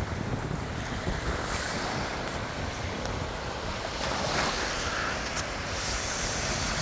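Small sea waves breaking and washing over a pebble shore, with wind rumbling on the microphone. The wash turns hissier about five seconds in.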